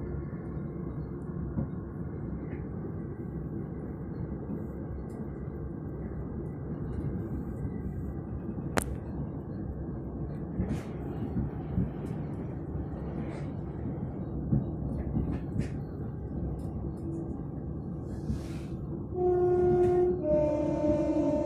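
Passenger train running, heard from inside the carriage: a steady rumble of wheels on rail with occasional sharp clicks. Near the end a two-tone train horn sounds, a higher note then a lower one, for about two seconds.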